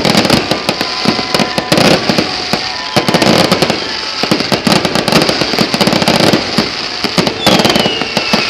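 Fireworks display: a dense, unbroken run of bangs and crackles, with a whistle falling in pitch near the end.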